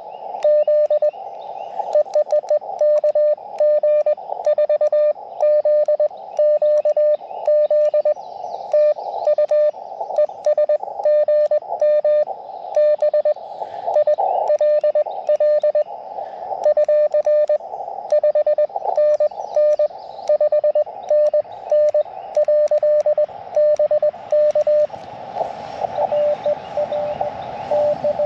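Morse code (CW) from an Elecraft KX2 transceiver: a steady tone of about 600 Hz keyed on and off in dots and dashes over the receiver's narrow band of hiss, with faint clicks at many of the tone starts. Near the end the tones turn fainter under the hiss.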